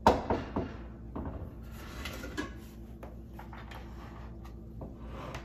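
A Roseville stoneware bowl set down on a wooden noodle board with a sharp knock. A few lighter knocks and soft scraping follow over the next couple of seconds as things on the board are shifted.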